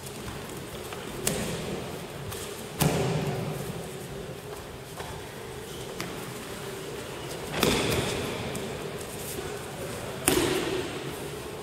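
Bodies falling onto tatami mats as aikido throws are practised: four heavy thuds, each echoing in the large hall, over a steady low hum.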